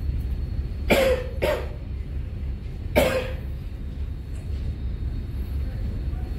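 A man coughing three times, twice close together about a second in and once more near three seconds, over the steady low drone of the ship.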